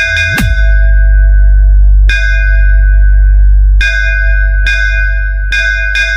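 Bass-heavy DJ sound-check track: a deep, sustained bass under a bell-like melody struck in quick runs, with a fast falling bass sweep shortly after the start.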